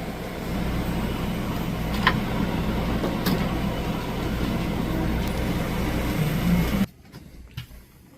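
RV rooftop air conditioner running with a steady hum, cutting off suddenly near the end, with a couple of faint clicks partway through.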